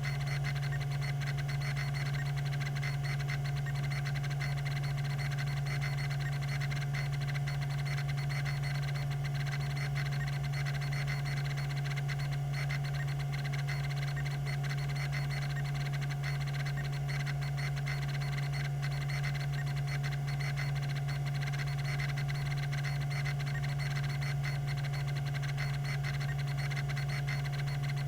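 Tandon-Microtek TM362 20 MB MFM hard drive running, with a steady motor hum and a continuous, fast, even ticking from its rack-and-pinion stepper head actuator.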